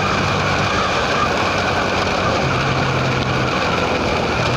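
Motorcycle on the move: steady engine and road noise with wind rush, the engine note shifting lower and higher a few times.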